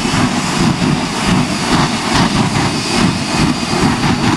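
Shockwave jet truck's three jet engines running at full blast, a loud roar with an uneven, surging crackle.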